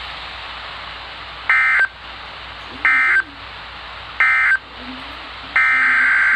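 NOAA Weather Radio SAME digital data bursts. Three short, identical warbling bursts about a second and a half apart mark the end of a warning message. Near the end a longer burst of the same buzzing data tone begins, the coded header of the next alert.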